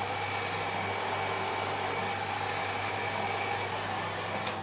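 Handheld hair dryer running steadily, a rush of air with a constant motor hum and a high whine, blowing onto hair held up on a round brush at the crown to set root volume. It is switched off right at the end.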